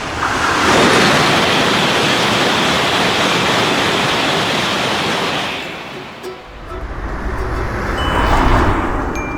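A train rushing past: a loud rush of noise that fades about five and a half seconds in, then a second swell with a low rumble.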